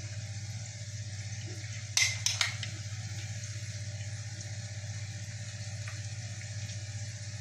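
A metal spoon clinks three times in quick succession against a glass bowl of sauce about two seconds in, over a steady low hum and faint hiss of kitchen background.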